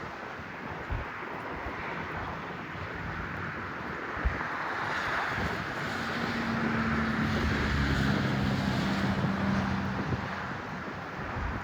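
Diesel locomotives of a slow freight train running as they approach, their steady engine note growing louder to a peak about eight seconds in, with wind buffeting the microphone.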